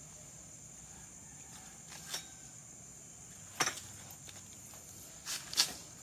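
A few short light metallic clicks and knocks, the loudest near the end, from metal parts being handled while a Honda PCX's final drive gear case is taken apart.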